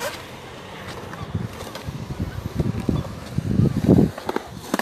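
Skateboard wheels rolling on smooth concrete, a low rumble that swells about three to four seconds in, with a few light clacks near the end.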